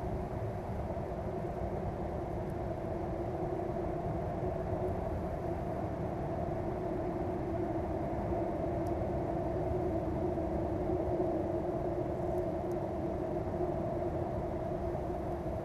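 Steady low rumble with a steady drone at two pitches over it, unchanging in level; a few faint ticks.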